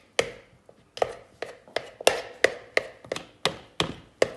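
A knife chopping soft butter into small pieces in a mixing bowl, the blade knocking on the bowl's bottom in sharp taps about three times a second.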